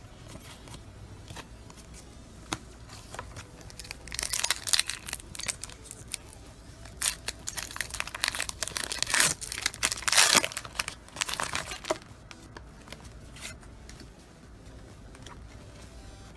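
Foil wrapper of a Pokémon TCG booster pack being torn open and crinkled by hand, in several rasping bursts from about four to eleven seconds in, with light rustling and clicks of handling between them.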